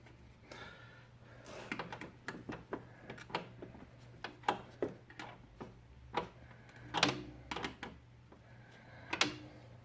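Irregular metallic clicks and taps of a hand wrench against a brake line fitting, a few strikes ringing briefly, notably about seven seconds in and near the end.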